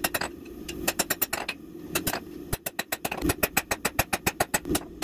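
Blacksmith's hand hammer striking a red-hot steel bar on an anvil in a quick run of sharp metallic blows, coming faster about halfway through. The blows are squaring the bar back up as it is forged down.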